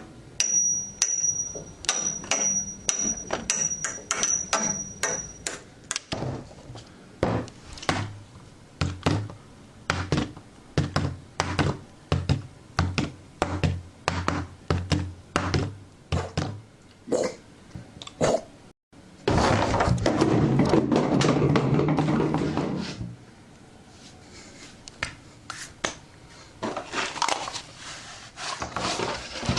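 A long series of knocks and thuds, about one or two a second, with a high pulsing tone over the first few seconds. In the middle comes a few seconds of loud, dense rushing noise.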